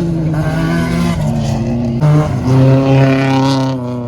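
Rally car engine running hard under load, with its pitch jumping up about two seconds in, climbing, then dropping away near the end.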